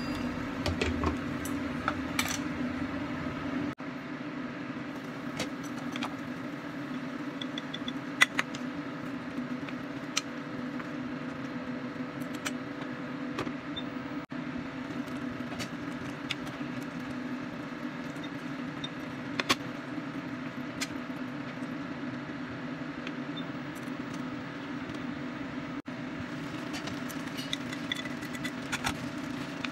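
Steady hum of an induction hob under a lidded pan of simmering vegetables and tofu, with scattered sharp clicks and taps, a few of them more clustered near the end.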